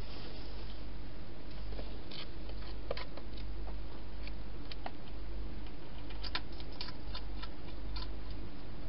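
A European hedgehog feeding inside a clear plastic feeding box: scattered sharp clicks and crunches, thickest around two to three seconds in and again from about six to eight seconds, over a steady low hum.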